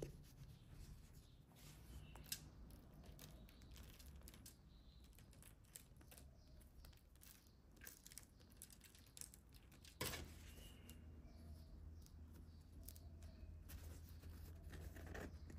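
Near silence with faint small handling noises: scattered light clicks and rustles, with a sharper click about two seconds in and another about ten seconds in.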